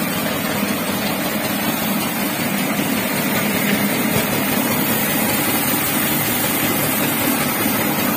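Small rice huller running steadily while it mills paddy: a loud, even machine noise.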